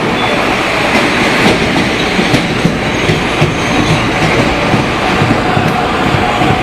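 Rio Metro Line 2 train running between stations: wheels clattering over the rail joints under a steady rumble, with the traction motor growling. A steady motor tone comes in near the end.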